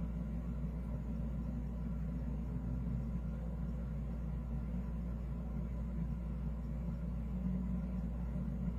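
Steady low rumble with no clear pitch and no distinct events.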